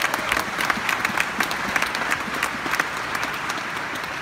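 Theatre audience applauding: a dense, steady clapping from the crowd with some single claps standing out sharply.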